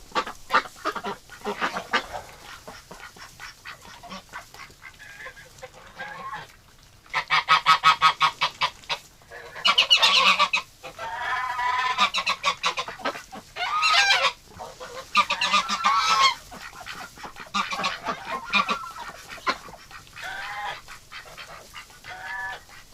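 Domestic geese honking in a barn, with loud runs of honks about seven, ten, fourteen and sixteen seconds in, and softer duck and goose chatter between them.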